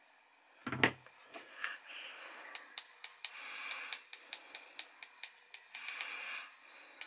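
Jewellery hand tools being handled on a tabletop: a knock a little under a second in as a tool is set down, then a run of light, quick metallic clicks from pliers and wire, with brief rustling.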